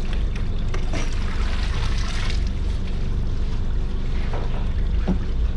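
Water splashing and trickling as a live-bait net is lifted and worked in the water against a boat's side, loudest about two seconds in, over a steady low hum.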